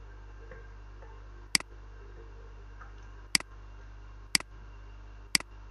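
Four sharp computer mouse clicks, each a quick press and release, a second or two apart, over a steady low electrical hum.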